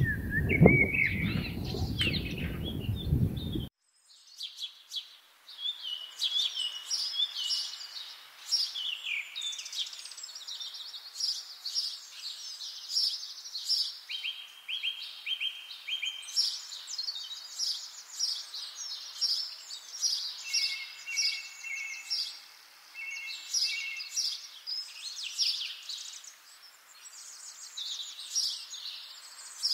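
Several songbirds singing and calling at once, a dense chorus of quick trills and chirps, some holding short steady notes. For the first few seconds a low rumble lies under the birdsong, and it cuts off abruptly about four seconds in.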